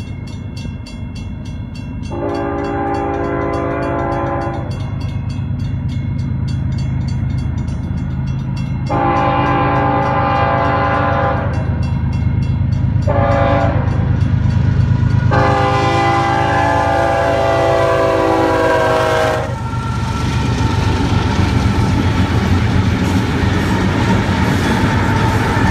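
Diesel freight locomotive's five-chime air horn, a Nathan K5HL, blowing the grade-crossing signal of long, long, short, long over the low drone of the locomotives' diesel engines. After the last long blast the horn stops and the steady noise of the train rolling past takes over.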